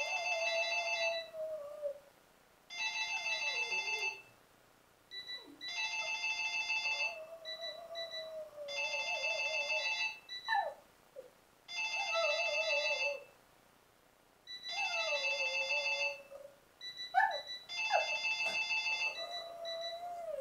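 A telephone ringtone sounding in repeated trilling rings, about one every three seconds, while a small dog howls along to it, its howl wavering and sliding down in pitch. The dog's howling is set off by the phone's ring.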